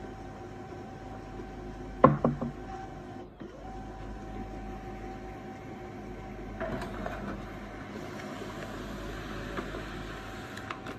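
Canon LBP 6000 laser printer running with a steady motor whine, just switched on after a new fuser unit was fitted. There is a sharp clunk about two seconds in, and louder, noisier running from about seven seconds in as paper goes into the tray.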